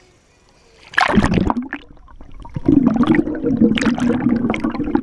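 Pool water splashing as the camera plunges under about a second in, then the muffled sloshing and gurgling of water heard with the microphone underwater.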